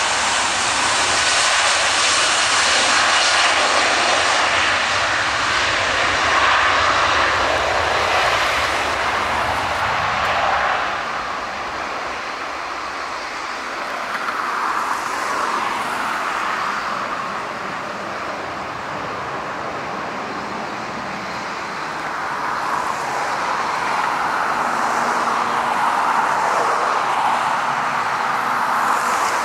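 Boeing 757's twin turbofan engines at takeoff power as the airliner rolls along the runway and lifts off. The engine noise eases a little after about ten seconds, then rises and falls in slow swells as the aircraft climbs away.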